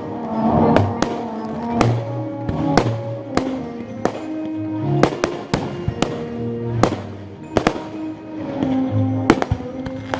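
Fireworks going off in a quick string of sharp bangs, roughly two a second, over music with a recurring low bass note.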